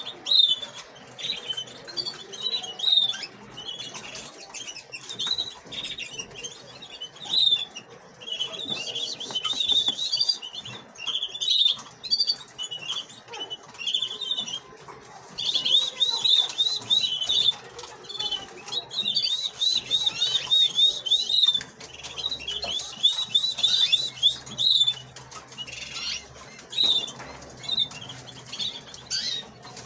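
Canary nestlings begging with rapid, high-pitched cheeping as they are fed by syringe; the cheeps come in runs and are densest around the middle.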